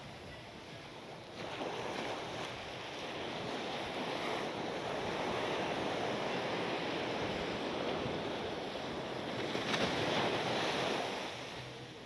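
Sea surf washing up on a sandy beach: a long rush of water that swells about a second in and dies away near the end.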